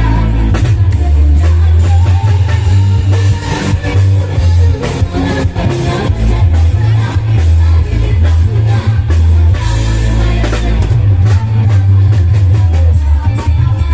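Loud live music played on electone electronic organ keyboards through a sound system, with a heavy, stepping bass line and a steady drum beat.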